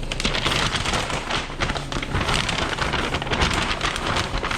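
Food frying in hot oil: a dense, steady sizzle full of fine crackles.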